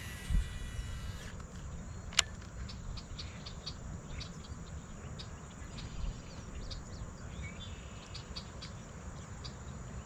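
Steady high insect drone from the marsh, with a low rumble underneath and scattered light ticks; one sharper click about two seconds in.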